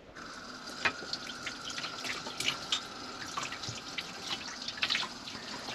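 Tap water running into a small sink, with repeated sharp clinks and knocks of dishes being washed.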